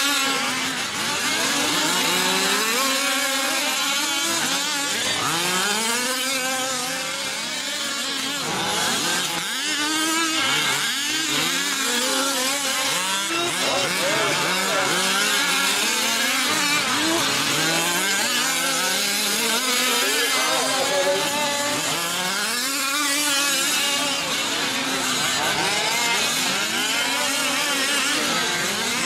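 Several gas two-stroke engines of 1/5-scale off-road RC trucks racing, overlapping one another and constantly revving up and down, their pitches rising and falling.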